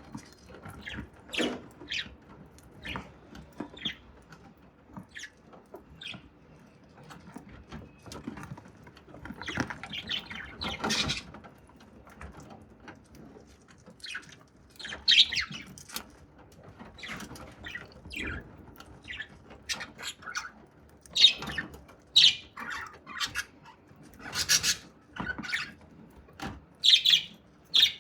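Budgerigar eating grains, its beak cracking and husking seeds in irregular small clicks and crunches, with a few louder ones in the second half.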